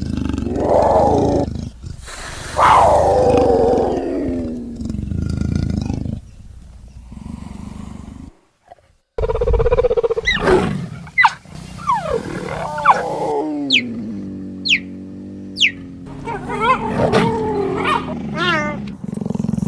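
A spliced series of big-cat calls: growling and snarling calls, a long yowl falling in pitch, and a brief silent gap. After the gap come three short, high chirps about a second apart, then more snarling calls near the end. The recordings come from cougars, leopards and cheetahs.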